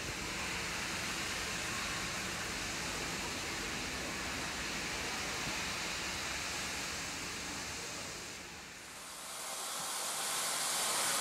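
Steady hiss of steam venting from standing steam locomotives. After a short dip about nine seconds in, the hiss comes back brighter and louder from the AD60-class Beyer-Garratt 6029, which is enveloped in its own steam.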